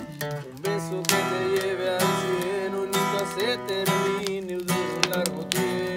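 Acoustic guitar strummed in a steady rhythm, about two strokes a second, with the chords ringing between strokes.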